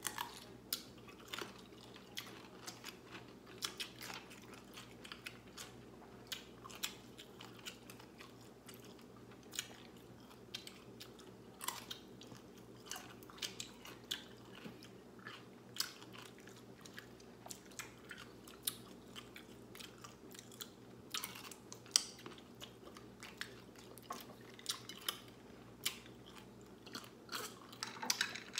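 Whole pickles being bitten and chewed, with irregular sharp, crisp crunches.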